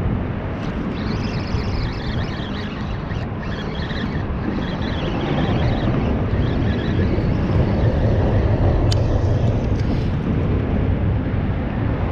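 Steady low rumble of wind buffeting the microphone of a body-worn camera at the water's edge, rising a little in the second half.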